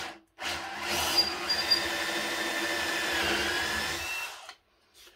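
Cordless drill with a 10 mm bit boring through stacked boards, its motor whining steadily under load. The pitch dips briefly a little after three seconds, and the drill stops about four and a half seconds in.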